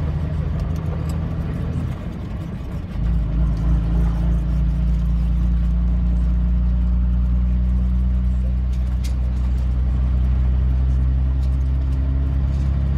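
Diesel pickup truck heard from inside the cab while driving on a gravel road: a steady low engine drone with tyre and road noise. About two seconds in it dips briefly, then settles into a louder, steady drone from about three seconds, as the truck changes gear or picks up speed.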